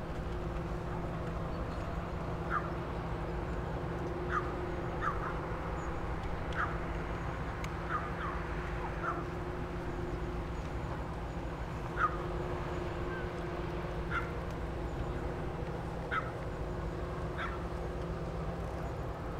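Birds giving short, slightly falling calls about a dozen times, one every second or two, over a steady low rumble.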